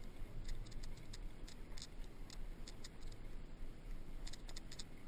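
Bicycle rolling over a cobblestone street: a steady low rumble with scattered light metallic ticks and rattles coming in irregular clusters.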